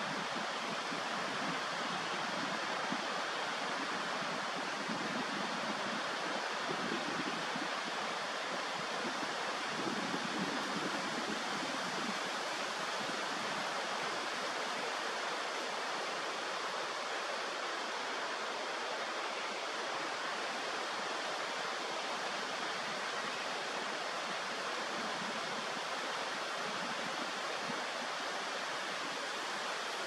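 Steady rushing of flowing water, an even hiss with nothing standing out from it.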